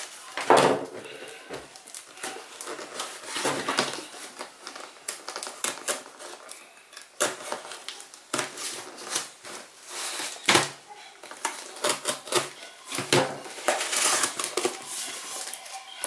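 Utility knife slicing through packing tape on a cardboard parcel, with irregular scraping, rustling and tearing of tape and cardboard as the box is handled and opened.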